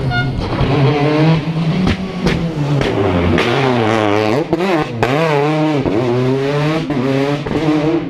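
Peugeot 208 rally car engine working hard through a hairpin. The revs rise and fall over and over, drop sharply around the middle as it brakes and changes down, then climb again as it accelerates away. A few sharp pops are heard along the way.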